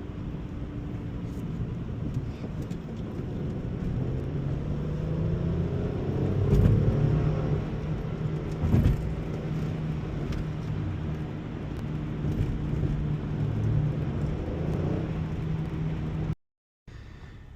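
Hyundai Tiburon's 2.7-litre V6 engine running under light throttle while driving, its pitch rising and falling. The clutch is slipping under throttle, which the owner puts down to the clutch itself.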